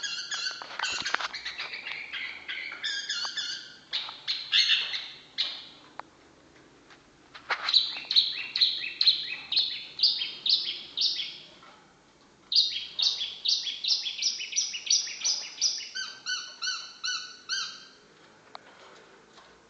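Long-tailed shrike (cendet) singing: loud series of rapidly repeated notes, about two a second, in several bursts broken by short pauses, with a few sharp clicks among them. The song stops shortly before the end.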